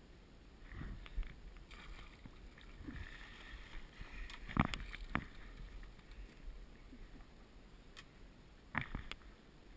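Fishing boat sitting on the water with a low steady rumble, broken by a few sharp knocks and clicks of gear being handled aboard, the loudest about halfway through and two more close together near the end.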